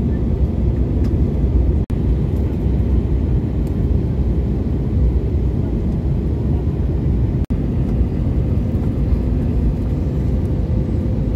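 Jet airliner cabin noise during descent, heard from a window seat beside the engine: a steady, deep rumble of engine and airflow with a faint steady hum. The sound cuts out for an instant twice.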